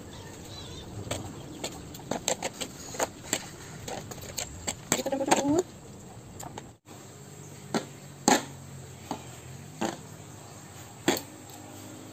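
Metal spoon and fork clinking and scraping against a serving tray while a large pile of cooked instant noodles is tossed and mixed, in irregular sharp clicks a second or so apart.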